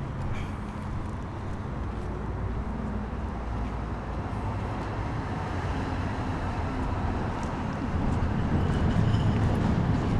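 Passing vehicle traffic, a steady low rumble that grows louder near the end.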